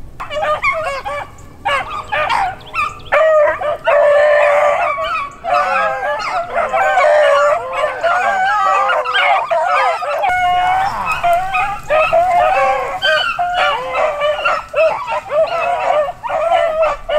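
A pack of beagles baying together, several voices overlapping almost without pause as they run a cottontail rabbit.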